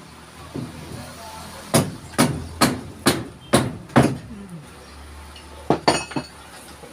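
Hammer blows on nails in wood: six even strikes about two a second, then a quick group of three near the end.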